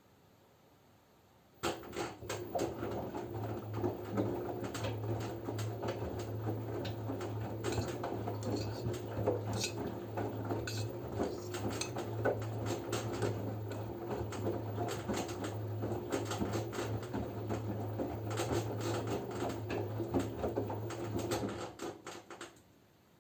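LG F10B9LD front-loading washing machine in its wash phase, the drum tumbling the laundry for about twenty seconds. The motor hums steadily under a dense clatter of clothes and water sloshing, with a few clinks. It starts about a second and a half in and stops shortly before the end, a pause between tumbling turns.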